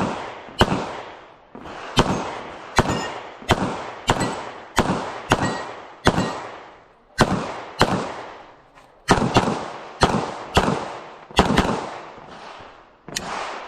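Rapid pistol fire from a Bul SAS II open-division pistol during an IPSC stage: about twenty sharp shots, mostly about half a second to a second apart, with a few slightly longer pauses between strings, each shot followed by a short echo.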